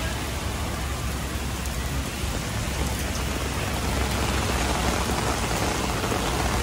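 Steady rain falling on a paved street, an even hiss with a low rumble underneath.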